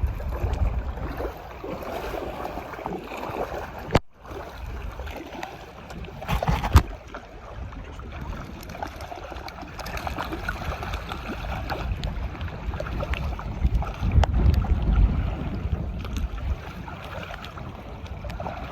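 Wind buffeting the microphone over moving water, a steady rough rush with no engine note. The sound drops out briefly about four seconds in, and a short louder gust comes about two and a half seconds later.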